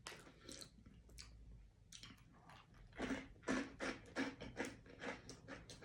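Someone chewing a crunchy snack close to the microphone: short, irregular crunches that come thicker from about three seconds in.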